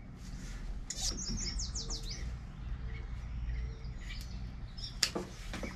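A songbird singing a quick run of high, descending chirps over a steady low outdoor rumble, with a few sharp clicks from the wire and tools being handled.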